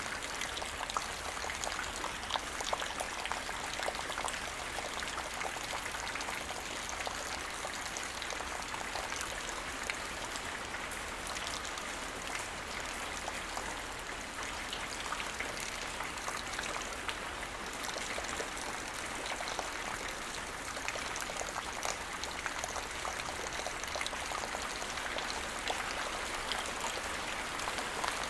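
Steady rain falling, a dense hiss dotted with many separate drop impacts.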